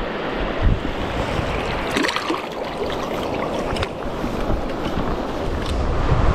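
Wind buffeting the microphone over choppy lake water lapping close by, with a couple of short clicks about two and four seconds in.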